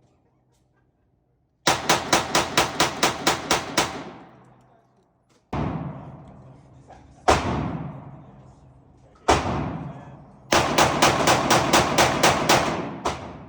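Firearm shots at a shooting range: a rapid string of about ten shots, then three single shots about two seconds apart, then another rapid string of about ten. Each shot rings on briefly after the crack.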